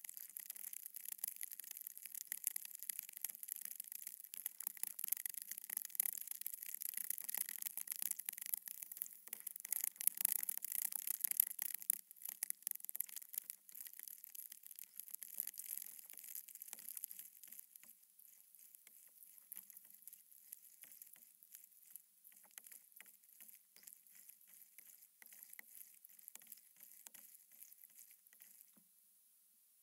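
Water lapping and splashing against the nose of a Red Paddle Co 12'6" Explorer inflatable paddleboard, heard as a dense, high crackling hiss. It fades to a quieter patter about two-thirds of the way through.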